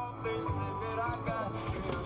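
Background music with a steady beat, about two beats a second, over held melody notes and a bass line.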